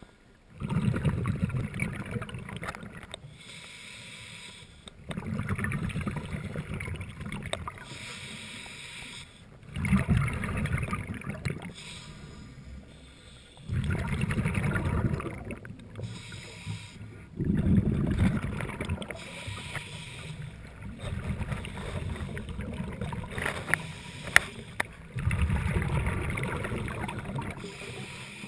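Scuba breathing through a regulator, heard underwater: bursts of exhaled bubbles bubbling loudly every four seconds or so, with quieter stretches between. One sharp click near the end.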